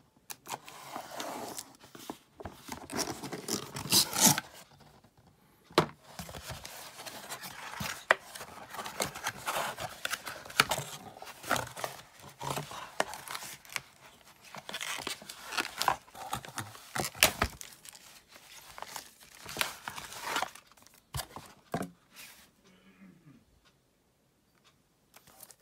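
Cardboard shipping box being opened by hand: tearing, rustling and scraping of cardboard and tape, with a few sharp snaps, as a boxed phone is slid out of its cardboard insert. The handling sounds thin out near the end.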